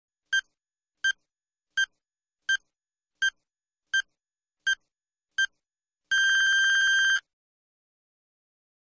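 Electronic countdown-timer beeps: eight short, evenly spaced beeps, then one long beep of about a second marking the end of the countdown.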